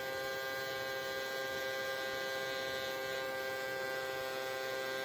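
Small battery motor of a toy handheld vacuum cleaner running at a steady, even hum; the vacuum has very weak suction.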